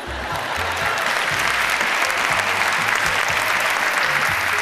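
Studio audience applauding, swelling during the first second and easing off near the end.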